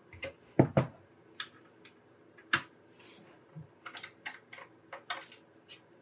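Clicks and knocks of a desktop PC's steel chassis and drive cage being handled and screwed back together with a small screwdriver: two loud knocks near the start, another a couple of seconds later, then a quick run of lighter clicks.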